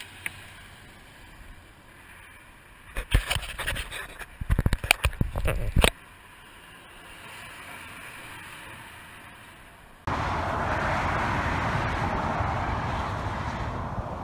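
A quick run of loud knocks and rattles from about three to six seconds in, from fish and gear being handled on a fiberglass boat. Near ten seconds in, a steady rushing noise starts suddenly.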